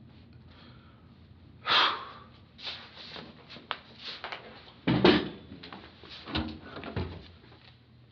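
A large poster board being lifted off an easel and handled: a short rustle about two seconds in, then scattered clicks and knocks, with a heavier thump about five seconds in.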